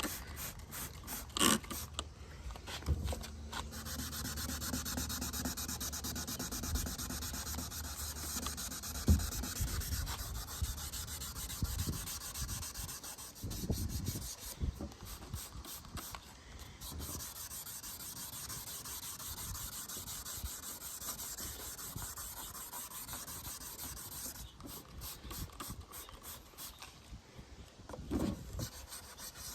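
Wet sanding pad rubbing back and forth over a plastic headlight lens in steady rasping strokes, taking the oxidised haze off the surface.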